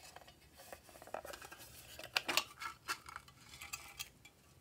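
Small blue pieces tipped out of a plastic candy-shaped case onto slime, rattling and clattering as a run of clicks. The clicks are loudest about two seconds in and stop about four seconds in.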